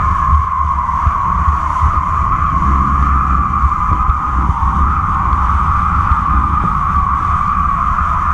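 Steady wind rush buffeting a camera rigged on the kite lines, with a constant high whistling hum over a low rumble.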